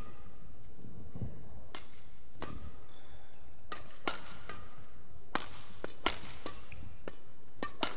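Badminton rackets striking shuttlecocks in quick rally exchanges: about a dozen sharp hits, more frequent in the second half, heard in a large hall.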